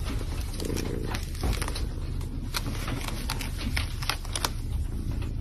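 Paper crinkling and scratching in small irregular crackles as a kitten paws at it and chews on it, over a low steady hum.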